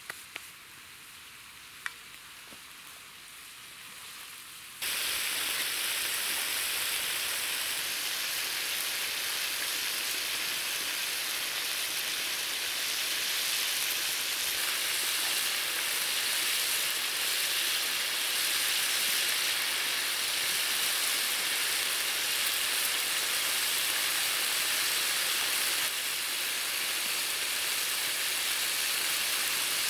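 Chunks of meat frying in a large steel disc pan (a harrow-disc wok) over a wood fire, sizzling with a loud, steady hiss that cuts in suddenly about five seconds in. Before that, a fainter background with a few sharp clicks.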